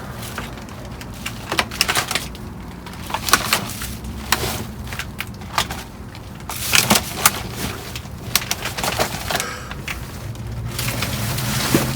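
Rummaging through dumpster trash: irregular knocks, clatters and rustles of boxes, bags and containers being shifted and handled, over a steady low hum.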